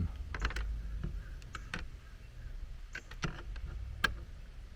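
A handful of light clicks and taps as meter probes and hand tools are handled at an AC disconnect box after a voltage check, over a steady low rumble.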